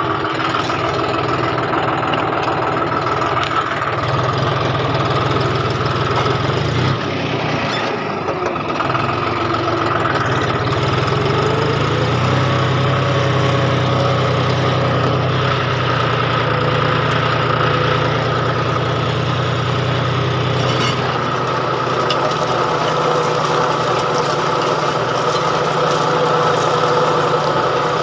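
John Deere tractor's diesel engine running steadily as the tractor drags a rear-mounted frame through a field of crop stalks, with a steady higher whine over the engine note.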